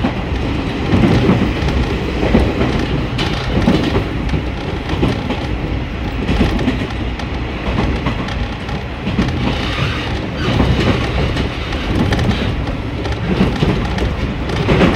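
Running noise of a Tsuyama Line diesel railcar at speed, heard from inside the carriage. The wheels and rails make a steady rumble, with louder knocks recurring every second or so.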